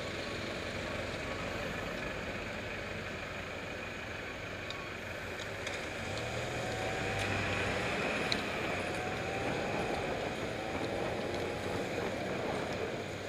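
Steady road traffic noise at a city junction, with vehicle engines idling and then rising and falling in pitch as traffic pulls away from about six seconds in. A sharp click stands out about eight seconds in.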